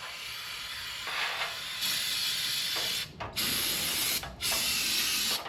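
Aerosol can of brake cleaner spraying in hissing bursts, washing residual oil off a metal part. It starts softer, then gives three loud spurts of about a second each with short breaks between them.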